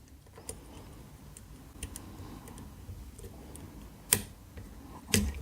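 Faint ticks and scrapes of a dimple flag pick working the pins inside an ABUS EC550 dimple lock cylinder under tension, with one sharp click about four seconds in and a smaller one near the end.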